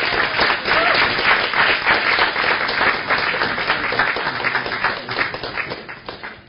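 Audience applauding a graduate, many hands clapping at once, loudest in the first few seconds and dying away near the end.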